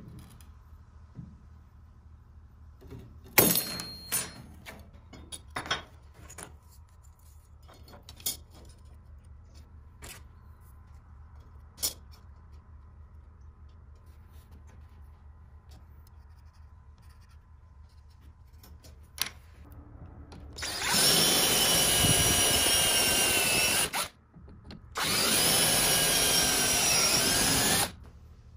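Power drill running in two bursts of about three seconds each, with a whining motor pitch, drilling holes through thin aluminium strip. Before that, scattered sharp clicks and clinks of the metal pieces being cut and handled.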